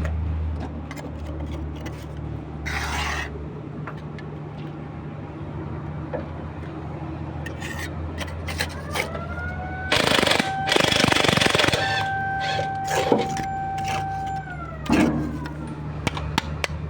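A heavy machine's engine running low and steady, with scattered sharp metal clicks, a loud burst of hiss about ten seconds in, and a steady whine that rises in, holds for several seconds and falls away.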